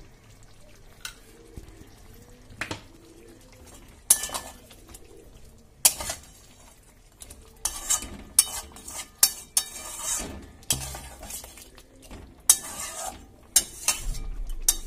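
Flat spatula stirring chicken curry in a metal pot, knocking and scraping against the pot at irregular moments, sparse at first and coming thick and fast in the second half, as salt just added is mixed in.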